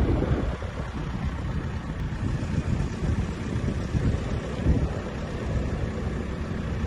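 Car driving, with a steady low rumble of engine and road noise heard from inside the vehicle.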